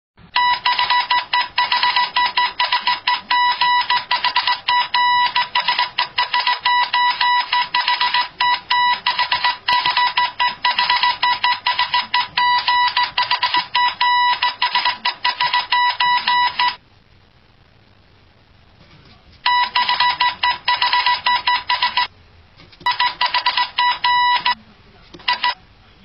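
Morse code beeping: a single high-pitched tone keyed on and off in rapid dots and dashes. It stops for about two and a half seconds two-thirds of the way through, then comes back in shorter runs with brief breaks.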